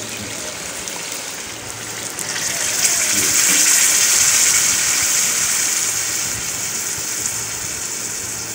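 Water poured from a steel mug into a hot pot of fried vegetables and masala, hissing and sizzling. The hiss swells about two seconds in, then slowly dies down.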